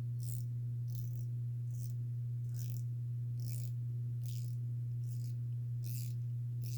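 Ratcheting box end of a Pittsburgh Pro 1/2-inch flex-head combination wrench being swung back and forth, giving a short burst of ratchet clicks about every 0.8 seconds. The ratchet is grabbing and not turning consistently, which the owner thinks may need working in or grease. A steady low hum runs underneath.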